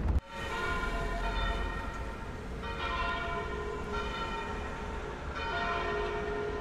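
Church bells ringing from a town bell tower, heard from inside a moving car with a low road rumble underneath. A fresh peal of strokes starts about every two and a half seconds. A louder wind rumble cuts off sharply just at the start.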